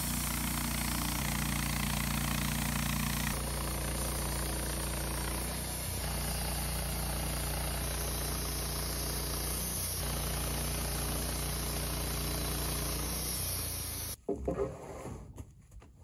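Woodmizer LT15 bandsaw mill's engine running steadily; its sound shifts abruptly a few times. About fourteen seconds in it gives way to a few knocks and rustles.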